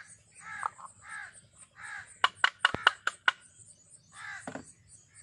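Crows cawing over and over, roughly two caws a second. In the middle, a quick run of about seven sharp clicks is the loudest sound.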